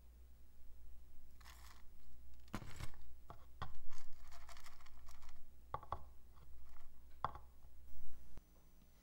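A clear plastic terrarium case being picked up and handled on a wooden board: several light knocks and clicks with short scraping, rustling noises between them.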